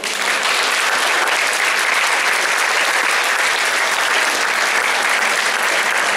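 Large audience applauding with dense, steady clapping.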